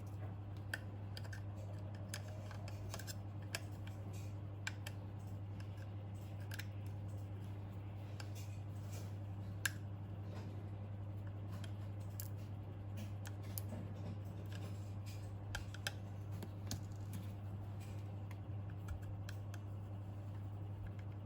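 Scattered, irregular small clicks and snips from hands working small parts and tools, over a steady low hum.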